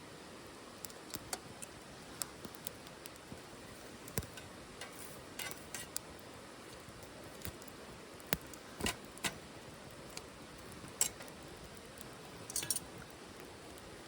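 Wood fire burning in a small titanium wood stove: irregular sharp pops and snaps of crackling wood, some with a light metallic clink, over a faint steady hiss.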